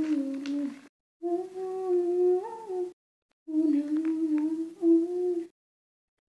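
A woman humming a melody close into a wired earphone microphone, in three held phrases with small steps in pitch and fully silent breaks between them.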